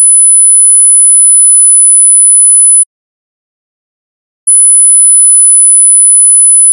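A pure sine-wave test tone, very high-pitched at about 10 kHz, played as an ear-training frequency-identification question. It sounds for nearly three seconds, cuts off, then plays again about a second and a half later.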